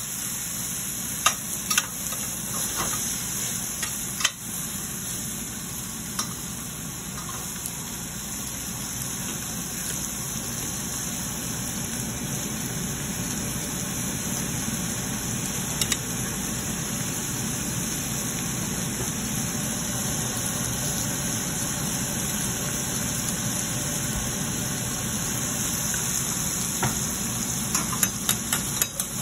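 Chicken and broccoli sizzling in a stainless steel sauté pan on a gas burner, over a steady low hum. A spatula clicks and scrapes against the pan a few times near the start and again near the end.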